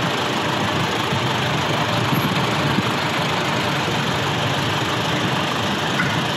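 An engine running steadily, a dense, even noise with no clear pitch.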